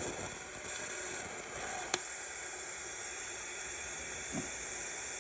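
Electric arc welding a new stud onto a snapped exhaust manifold stud: a steady hiss from the arc, with one sharp click about two seconds in.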